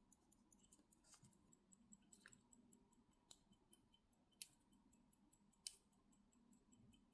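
Small, quiet clicks and taps of metal parts and tools being handled on a watch strap, the two sharpest a little over four and about five and a half seconds in, over a faint, rapid, even ticking.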